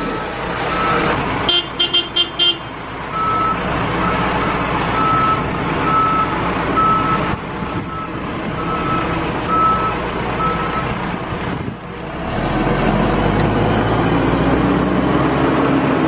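A John Deere 310J backhoe loader's diesel engine running, with four quick horn toots about a second and a half in. Then the backup alarm beeps steadily, about once a second, as the machine reverses. Near the end the beeping stops and the engine grows louder.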